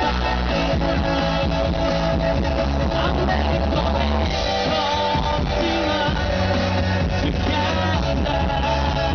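Live rock band playing a song, with a singer, guitar and drums.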